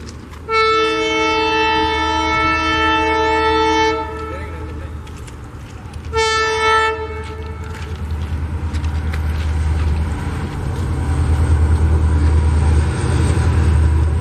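WDP4D diesel locomotive's horn: one long blast of about three and a half seconds, then a short blast a couple of seconds later, warning people off the track. After that the locomotive's low engine rumble grows steadily louder as the train draws near.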